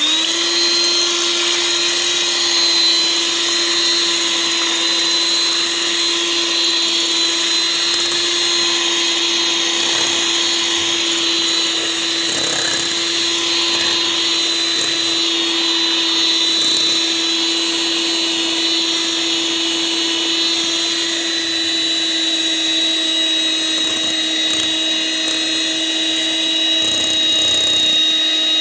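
Electric hand mixer beating eggs in a metal bowl: the motor comes up to speed at the very start, then runs at a steady, loud whine.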